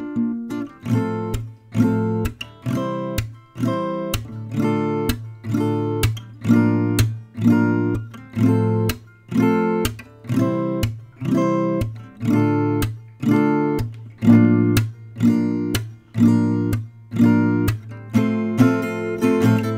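Background music: an acoustic guitar strummed in a steady rhythm, about two chords a second.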